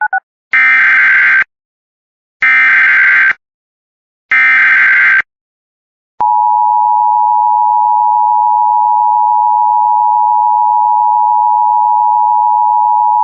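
Emergency Alert System broadcast tones: three bursts of about a second each of the SAME digital header, the warbling data that encodes the alert, and then, about six seconds in, the steady two-tone EAS attention signal, which holds unbroken.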